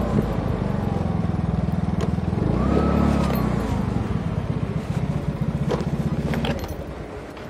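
Motor scooter engine running with a fast low puttering beat, picking up briefly about three seconds in with a whine that rises and falls, then cutting off near the end.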